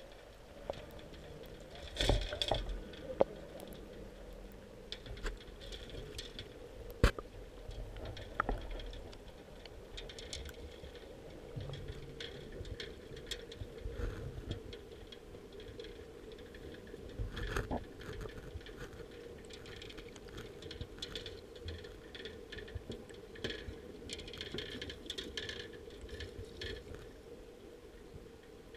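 Underwater sound through a submerged camera: a steady low hum with scattered sharp clicks and knocks, the loudest about two and seven seconds in.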